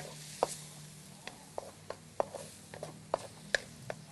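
Spatula clicking and scraping against a wok while stir-frying minced pork, with sharp ticks every third of a second or so over a faint sizzle.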